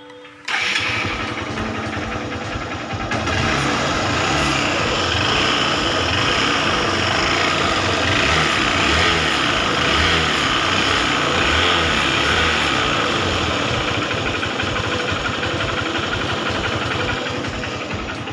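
Hero Honda CBZ Xtreme's single-cylinder engine comes in suddenly about half a second in and runs steadily, now with a new exhaust-side rocker arm fitted to cure its tappet noise.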